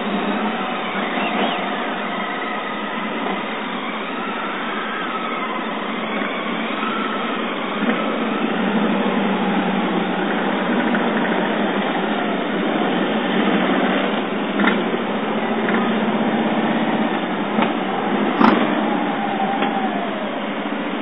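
A column of police motorcycles riding past one after another, their engines running steadily, with a single sharp click about eighteen seconds in.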